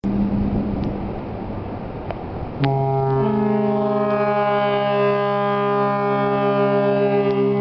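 Cruise ship's horn sounding one long, deep, steady blast that starts about two and a half seconds in and holds through the rest, after a fainter low tone and rushing noise.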